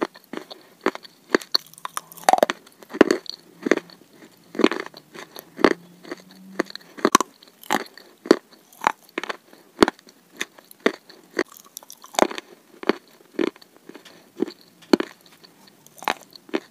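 Close-miked chewing of a dry, crunchy mouthful with the mouth closed, in chalk-and-clay eating ASMR: sharp crunches at a steady pace of about two a second.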